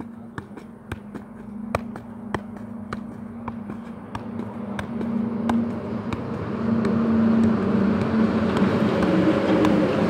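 A football being juggled on foot, each touch a sharp tap, about two a second. From about halfway a low hum with a rushing noise swells up and becomes the loudest sound.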